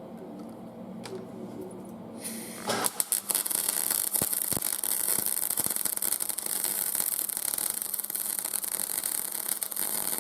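Aerosol spray-paint can hissing in one long, steady burst that starts about two seconds in, with a few clicks as it begins, and cuts off sharply at the end.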